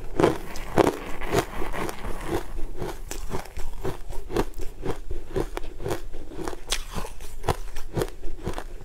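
Crushed sweet coloured ice crunching as it is chewed, with sharp crunches several times a second.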